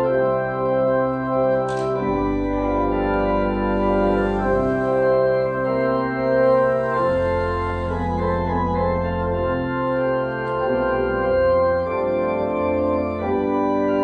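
Church organ playing a postlude of sustained chords over a deep pedal bass that changes note every couple of seconds.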